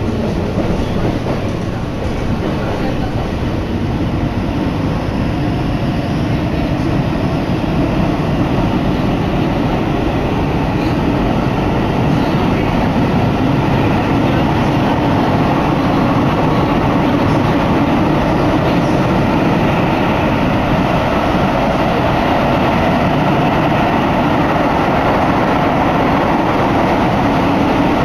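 Inside a Keihan commuter train running through the underground Oto Line tunnel: the steady rumble of wheels and running gear fills the car. It grows a little louder partway through.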